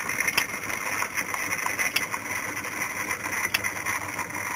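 Myford lathe running slowly, winding fine magnet wire onto a magneto armature coil: a steady mechanical whir with a sharp tick about every second and a half.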